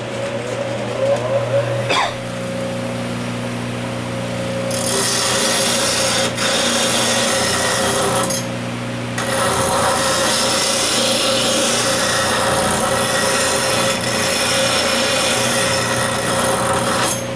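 Bench grinder motor running steadily while a woodturning gouge is sharpened on the wheel. The harsh grinding of steel on the wheel starts about five seconds in, breaks off for a moment, then resumes until just before the end.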